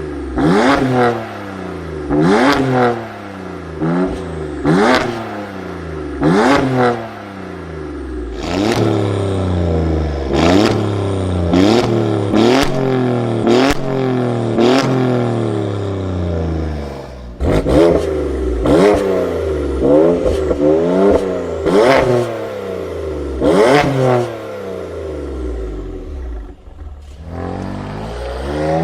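Performance car engine free-revved in quick blips, about one a second, each rev rising sharply and falling straight back, with two short lulls.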